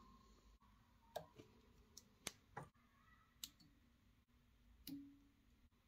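Small scissors snipping the legs of a nymph fly held in a fly-tying vise: about seven faint, sharp snips at uneven intervals.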